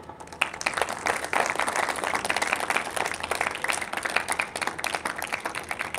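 An audience applauding: many people clapping at once, at an even level for several seconds.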